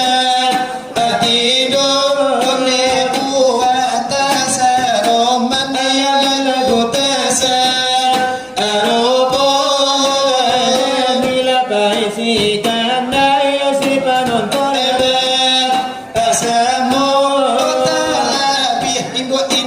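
Selawat dulang: a voice singing a sliding, ornamented devotional melody, accompanied by quick strikes on a large brass tray (dulang).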